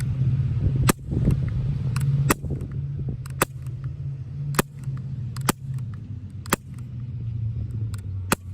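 Umarex CO2 BB gun fired in single shots, about seven sharp cracks roughly a second apart, over a steady low rumble.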